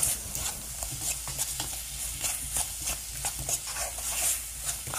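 A spatula stirring and scraping mushrooms in thick gochujang sauce around a nonstick wok, in many short, irregular strokes, over a soft sizzle of the sauce frying on high heat.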